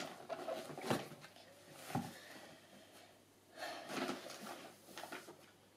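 Faint handling sounds: cardboard product boxes being put down with two soft knocks, then brief rustling as she moves to the shopping bag.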